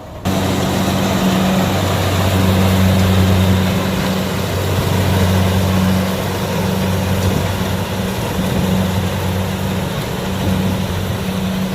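Kubota DC70 combine harvester running, a steady engine hum with dense machine noise from the harvesting works. It starts abruptly just after the start.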